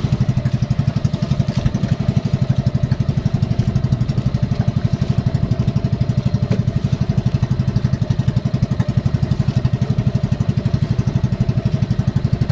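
Small engine of a motorized outrigger boat running steadily under way, a fast even pulse of several beats a second that does not change in speed.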